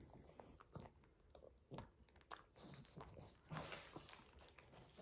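A pug chewing a piece of banana: faint, irregular clicks and smacks of its jaws, with a louder run of them about three and a half seconds in.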